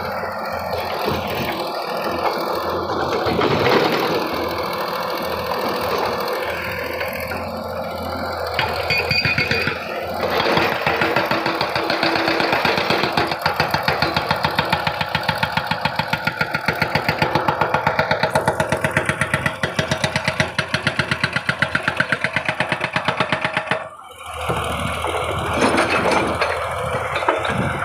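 Excavator's diesel engine running under working load. From about ten seconds in there is a fast, even pulsing of roughly five strokes a second, which stops briefly near the end.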